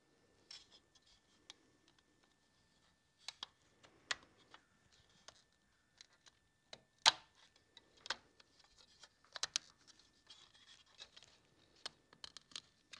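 Hands fitting black inner trim into a painted Porsche headlight sugar scoop: scattered light clicks, taps and scraping, with one sharper knock about seven seconds in.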